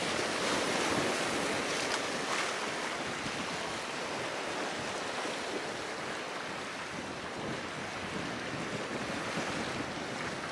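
Ocean surf washing steadily against a rocky shore, with wind on the microphone.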